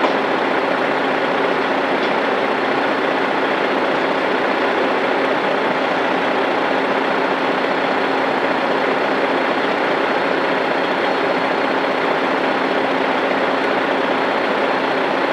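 Heavy diesel truck engine idling steadily, a constant low rumble with a faint hum.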